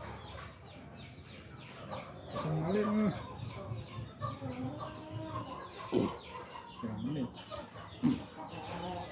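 Chickens clucking in short calls, with a few sharp plastic clicks from loose model railway track pieces being handled.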